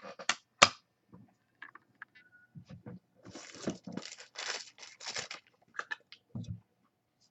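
Sports-card pack wrapper being torn open: a few sharp clicks and taps, then a stretch of tearing and crinkling foil about three seconds in, and more handling clicks near the end.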